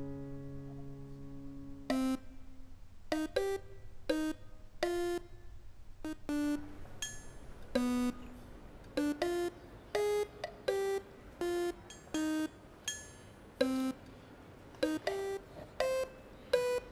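Background music: a held chord fades out over the first two seconds, then a light melody of short, separate notes at changing pitches.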